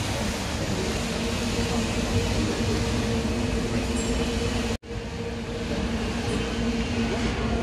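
Steady rushing and hissing of the Bellagio fountain's water jets spraying, with a low steady hum underneath. The sound cuts out for an instant about five seconds in.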